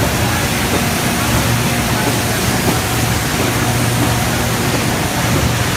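Horizontal flow-wrapping machine running on a packaging line, a steady low hum under an even hiss of machinery noise.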